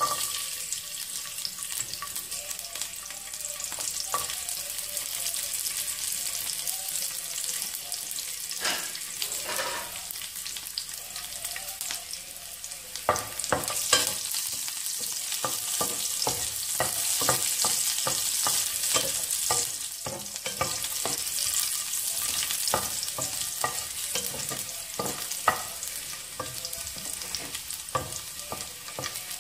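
Whole peeled garlic cloves sizzling in hot oil in a pan. About halfway through, a spatula starts stirring them, with many short scrapes and knocks against the pan over the steady sizzle.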